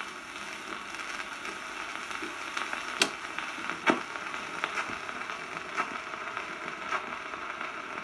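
Stylus of a Stereo RG5 radiogram riding the record's run-out groove after the song has ended: steady surface hiss and crackle, with a few sharper clicks, the loudest two about three and four seconds in.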